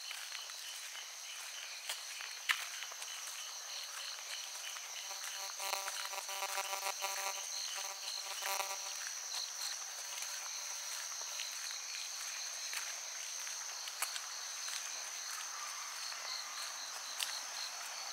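Crickets chirping steadily: one continuous high trill and a second, fast pulsing chirp, with a few footsteps clicking on the path. From about five to nine seconds in, a buzzy pitched call rises over them.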